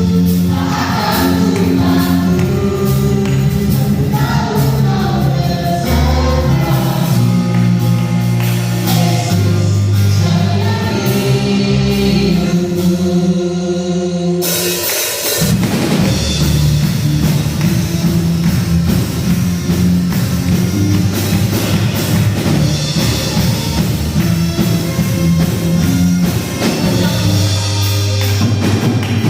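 Worship song sung by singers with band accompaniment. About halfway through the music suddenly gets fuller and brighter, as with a cymbal crash and the full band coming in.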